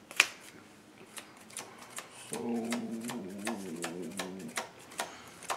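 Sleeved trading cards being handled and set down on a playmat: a sharp card snap just after the start, then a string of lighter clicks and taps. From about two seconds in, a person's low wordless voice hums for about two seconds.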